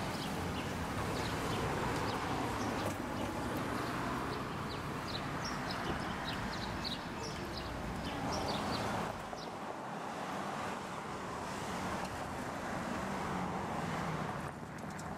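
Outdoor street ambience: a steady noise of traffic with small birds chirping repeatedly. About nine seconds in, it gives way to a steadier, fainter outdoor hiss with few chirps.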